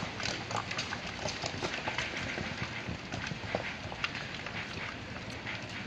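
Loose rocks and stones clattering down a landslide slope: a continuous, irregular run of sharp knocks and clicks.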